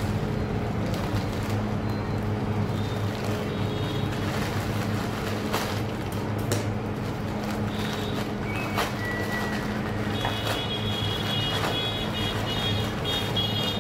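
A plastic courier mailer being handled and pulled open, with a few sharp crackles about six seconds in, over a steady low hum. A high, steady beeping tone comes in near the end.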